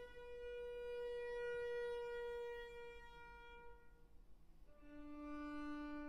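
Solo violin playing long, slow bowed notes: a high held note that fades away about three seconds in, then after a short pause a lower note held steadily near the end.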